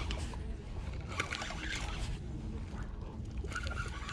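Water sloshing against a fishing platform over a low steady rumble, with a few light clicks about a second in, as a hooked fish is reeled up to the surface on a spinning reel.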